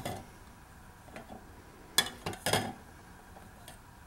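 A handheld dissolved-hydrogen meter knocking against drinking cups as it is dipped into and moved between them: a few short clacks and clinks, the loudest cluster about two seconds in.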